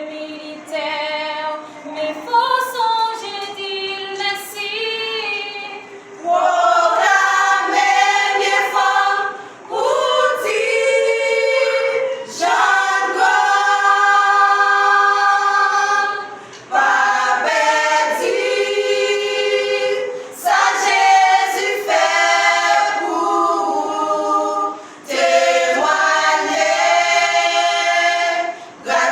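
A vocal group sings a gospel song in close harmony, with female voices among them. The song goes in phrases with short breaks between them, and grows louder about six seconds in.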